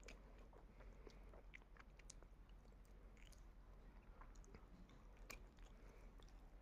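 Fox terrier faintly chewing food, a scatter of small irregular clicks and crunches.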